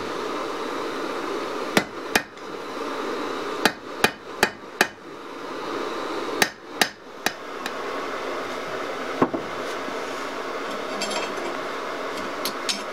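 Hand hammer striking hot steel on an anvil, forging a bowie blade out of a lawnmower blade: short groups of sharp blows (two, then four, then three, then a single one) with pauses between, over a steady rushing noise. A few lighter taps near the end.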